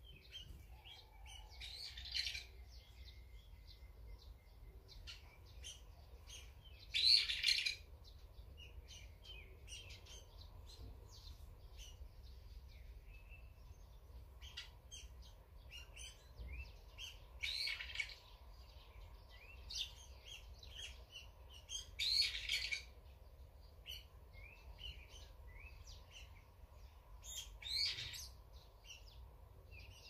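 Small songbirds chirping and calling: a steady run of short high chirps, with five louder calls of about half a second spaced roughly five seconds apart.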